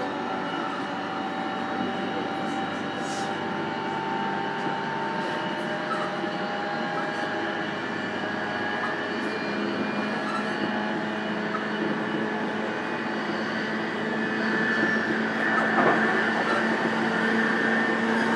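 Running sound inside the motor car of a JR East E233-series electric train: a steady rumble of wheels on rail with several steady motor and inverter tones over it. It grows louder about three-quarters of the way through, when a low steady tone and a higher one come in.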